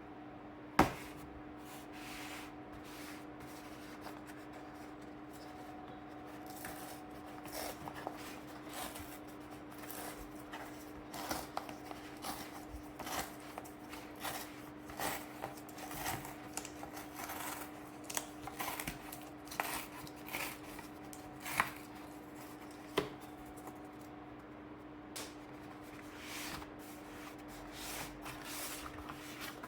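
Packaging being opened and a paperback book handled: rustling, scraping and scattered taps, with one sharp knock about a second in. A steady low hum runs underneath.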